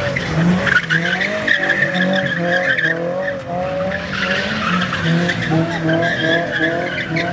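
Car engines revving up and down and wavering in pitch as cars spin their wheels and drift on snow.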